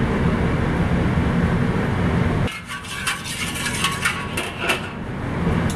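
Steady low rumble of a gas wok burner on high heat. About two and a half seconds in the rumble drops away and a metal spatula clinks and scrapes against the steel wok as the oil is stirred.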